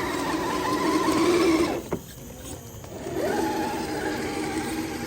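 RC crawler's electric motor and drivetrain whining under throttle, slowly rising in pitch, cutting off sharply a little under 2 s in, then starting again about a second later with a quick rise in pitch.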